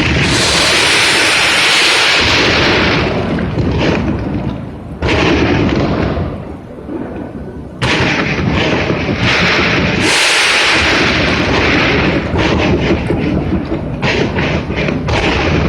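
Aerial fireworks bursting close by: loud, continuous booming with dense crackle, with fresh volleys starting sharply about five and about eight seconds in, and rapid crackling near the end.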